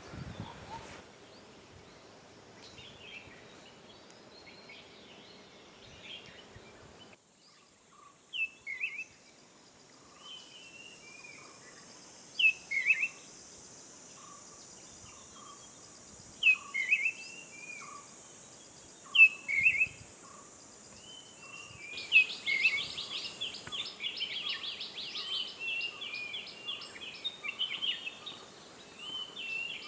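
Wild forest birdsong. A bird gives loud, sharp calls that slide downward, repeated every three to four seconds, over softer low notes. About 22 seconds in, a fast chattering trill starts. A steady high hiss runs underneath.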